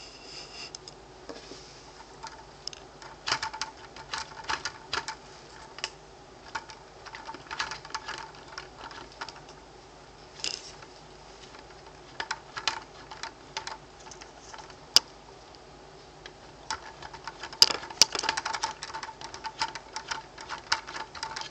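Handling noise: irregular clicks and taps of fingers and plastic parts close to the microphone, coming in clusters with short pauses and one sharper click about two-thirds of the way through.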